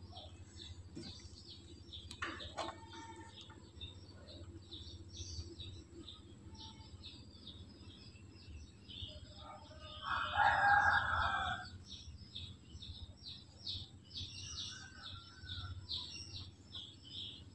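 Small birds chirping rapidly and continuously in the background. A rooster crows once, about ten seconds in, and that crow is the loudest sound.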